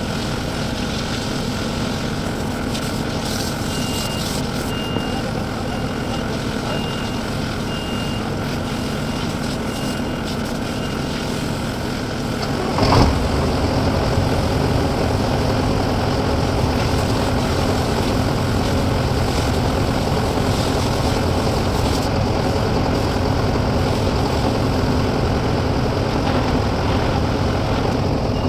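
CAT skid steer's diesel engine running steadily, with its reversing alarm beeping about once a second for several seconds. About 13 seconds in there is a sharp knock, and the engine then runs louder and heavier for the rest of the time.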